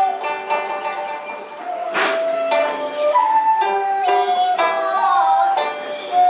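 Nanyin chamber music: a vertical bamboo flute (dongxiao) holds long, slowly gliding notes over the plucked pipa, with a sharp clack of the wooden clappers (paiban) about two seconds in and a woman's singing voice joining in.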